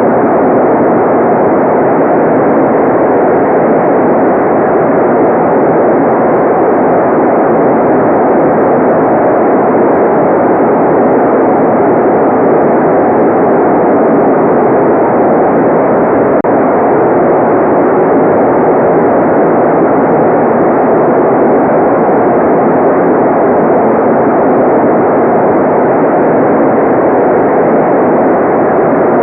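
Continuous, unchanging synthetic noise track sold as white noise: an even, steady rush with no tones or separate events, its energy mostly in the low-middle range and nothing above about 3 kHz.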